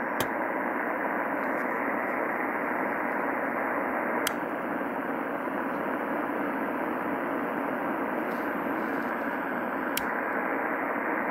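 Receiver audio from a homebrew SSB transceiver with no signal tuned in: steady band hiss, its top end cut off sharply by the homebrew four-pole 9 MHz crystal filter. Sharp clicks come about a quarter second in, about four seconds in and near the end.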